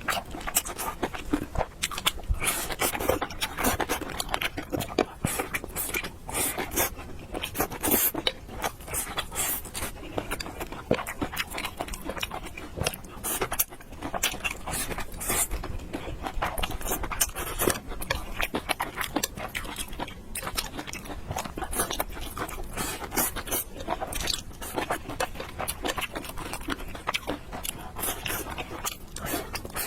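Close-miked eating: a person chewing and biting food, with crunching and scraping sounds and many small irregular clicks throughout.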